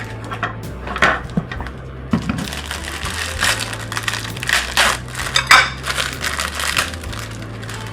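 Bag of croutons crinkling and croutons crunching as they are handled, in irregular bursts.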